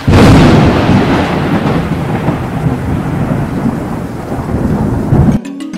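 Thunderclap with rain: a sudden loud crack, then a long rolling rumble over steady rain hiss that slowly eases. Near the end it cuts off abruptly and gives way to a brief low steady tone with a few sharp clicks.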